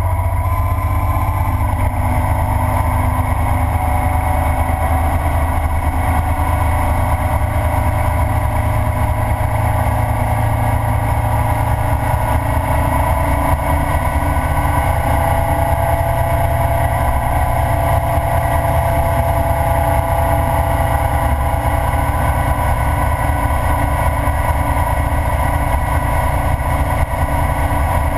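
Ural sidecar motorcycle's flat-twin engine running steadily at cruising speed, mixed with wind and road noise. The engine note drifts only slightly in pitch.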